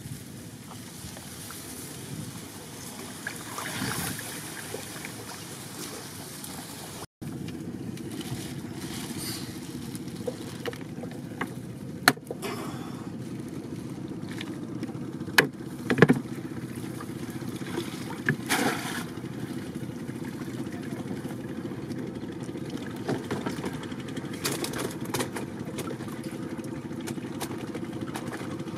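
Steady outdoor background noise with a few sharp knocks and clatters, from a bamboo prawn trap being handled on a wooden boat deck.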